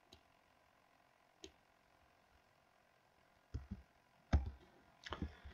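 Scattered computer mouse and keyboard clicks. There are two faint single clicks in the first second and a half, then a cluster of louder clicks from about three and a half seconds in.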